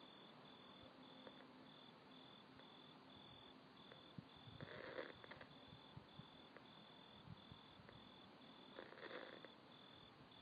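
Near silence: a faint hiss with a faint high tone pulsing evenly about three times a second, and soft breath-like puffs twice, about four seconds apart.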